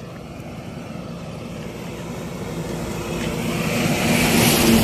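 A heavy truck on the highway approaching, its engine hum and tyre noise growing steadily louder until it passes close by near the end.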